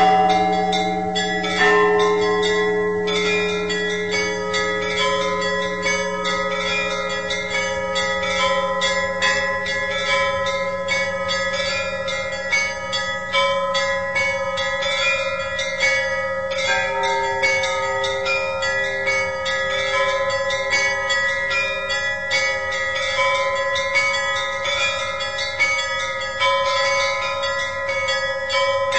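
Church bells of a Russian Orthodox church being rung together: quick strikes on the small bells over the ringing tones of larger bells, with a lower bell joining at a steady beat of about two strokes a second past the middle.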